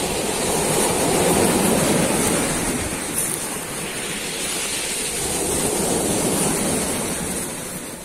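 Sea waves breaking and washing up the beach, the surf swelling twice, about four seconds apart.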